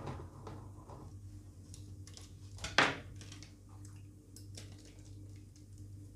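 Quiet handling sounds of cake assembly, with one sharp clatter almost three seconds in as a metal offset spatula is set down on the table. A steady low hum runs underneath.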